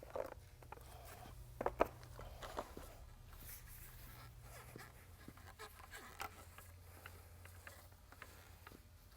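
Faint rolling of a paint roller spreading wet water-based polyurethane topcoat over a concrete floor, with a few light knocks in the first couple of seconds and a low steady hum.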